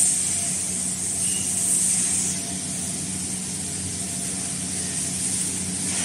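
Food-packaging machinery running steadily: an electric hum with a high hiss over it that fades out about two seconds in.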